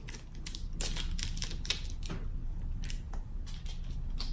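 Small plastic soy sauce packet crinkling and being torn open by hand: an irregular run of small sharp crackles and clicks.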